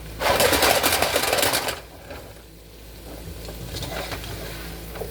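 Rapid rattling and scraping of a utensil stirring sautéing chicken, onions and bell peppers in a frying pan, loud for about a second and a half near the start, then a quieter sizzle.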